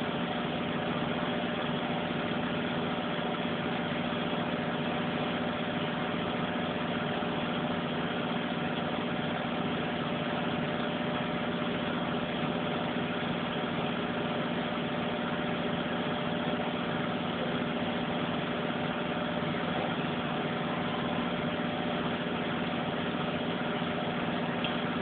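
Front-loading washing machine drum spinning in its final spin cycle: a steady, even hum with constant tones and no change in speed.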